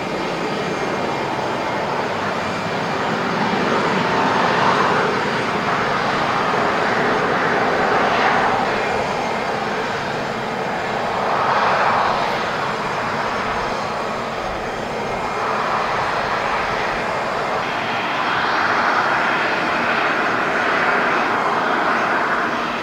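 Boeing 737-500's CFM56 turbofan engines running at low taxi power, a steady jet rush that swells and eases every few seconds.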